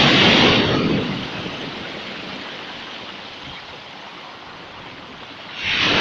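Black Sea surf on a pebble beach: a wave breaks at the start and its foamy wash fades to a softer hiss, then the next wave crashes near the end.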